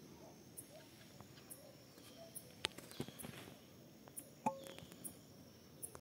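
Faint outdoor hillside ambience: an insect gives a short high-pitched chirp about once a second over a soft hiss, with a few faint bird notes. Two sharp clicks, about midway and later, are the loudest sounds.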